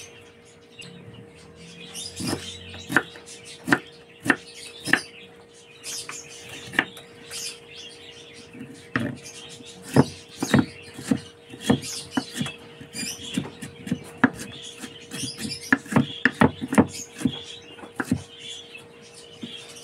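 Kitchen knife dicing cucumber on a wooden cutting board: irregular sharp knocks of the blade striking the board, coming in quick runs, over a steady hum.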